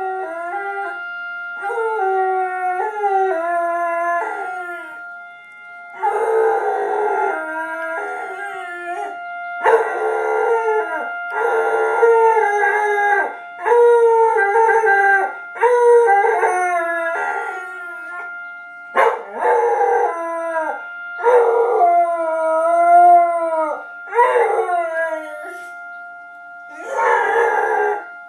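A dog howling along with a civil-defence siren sounding the Israeli Memorial Day siren: the siren holds one steady tone throughout, while the dog gives a long series of howls, each a second or two long and bending up and down in pitch, with short breaths between.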